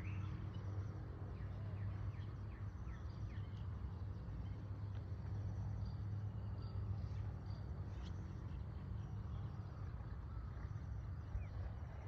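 A steady low hum under faint, scattered bird chirps.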